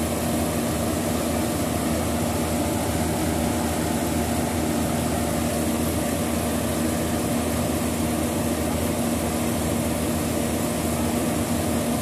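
Yanmar rice combine harvester's diesel engine and machinery running at a steady pitch while it unloads threshed paddy through its auger spout.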